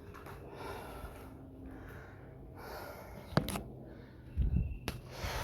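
A man breathing hard and fast after half an hour of non-stop cardio, with a loud breath roughly every second. A sharp click comes about three and a half seconds in, followed a second later by a low thump and another click.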